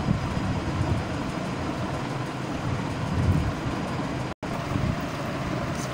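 Steady rumbling background noise that cuts out for a split second about four seconds in.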